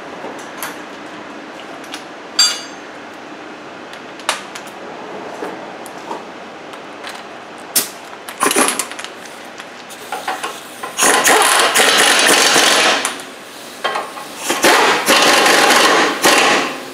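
A few light tool clicks, then an air impact wrench hammering: short blips, followed by two runs of about two seconds each, running a bolt down on the front suspension.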